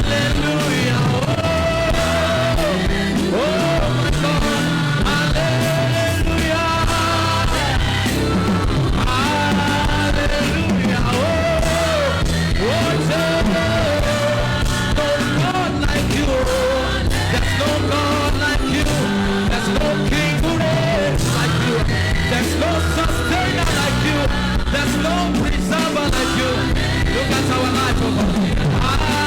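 Live church worship music: a band playing with singing, held melody notes over a steady beat.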